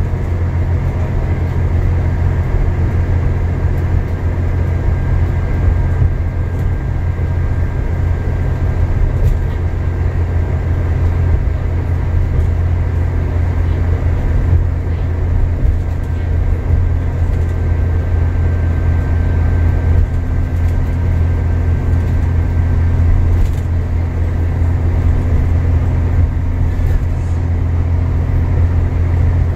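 Alexander Dennis Enviro400 MMC double-decker bus heard from inside the passenger saloon while cruising at speed: a steady, loud low rumble of engine drone and road noise. A faint thin whine sits over it through the middle of the stretch.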